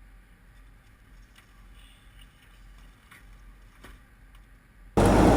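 Faint low hum with a few soft clicks, then near the end a sudden jump to loud, steady vehicle noise, like a truck's cab on the road.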